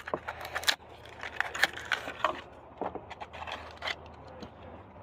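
Plastic blister pack and cardboard backing of a Hot Wheels die-cast car being torn open by hand: irregular crackles, clicks and scrapes.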